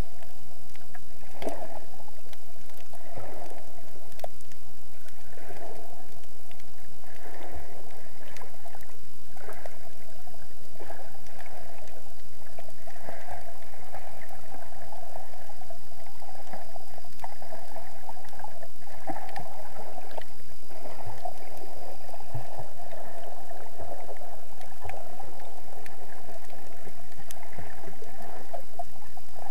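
Muffled underwater water noise heard through an action camera's waterproof housing: sloshing and gurgling in irregular surges, with a faint steady high whine underneath.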